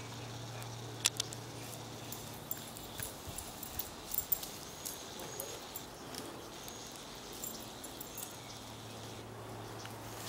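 A small dog running about in tall grass: rustling, with scattered sharp ticks and snaps, the sharpest about a second in. A low steady hum sits under the first few seconds and again near the end.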